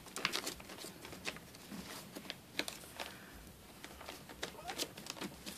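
Faint rustling with scattered light clicks and taps from puppies shifting about on newspaper and against the phone.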